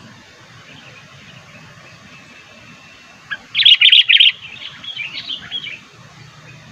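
Sooty-headed bulbul (kutilang) calling: a short, loud run of quick chattering notes about three and a half seconds in, followed by a softer string of notes. A faint steady low noise lies underneath.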